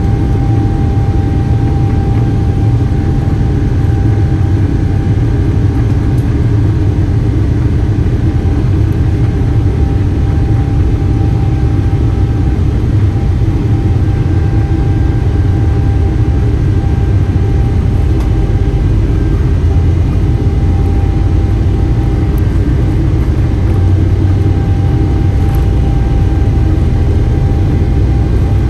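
A Boeing 777-300ER's GE90-115B turbofan engines at taxi power, heard from inside the cabin: a steady low rumble with a thin, steady whine above it.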